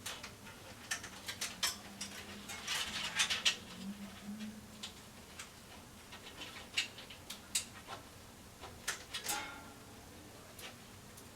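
Irregular small clicks, taps and scrapes of plastic and metal computer-case parts being handled, with a denser burst of scraping about three seconds in and another near nine seconds.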